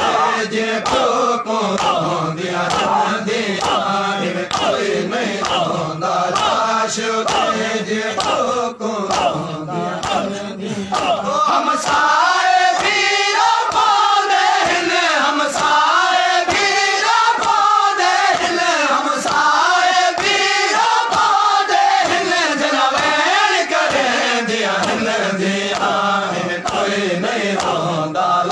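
A noha, a Shia mourning lament, chanted by a lead reciter through a microphone with a crowd of men singing along. Under it runs a steady beat of open-hand chest slaps (matam). About twelve seconds in, the group voices rise higher and get louder.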